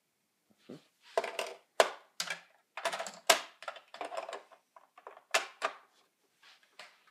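Hard plastic vacuum cleaner attachments being handled and knocked together: a run of irregular sharp clicks and clacks, a few of them louder.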